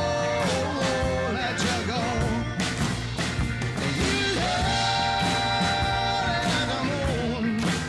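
Blues-rock band recording playing, with singing over drums and electric guitar. Long notes are held in harmony near the start and again from about four to six seconds in.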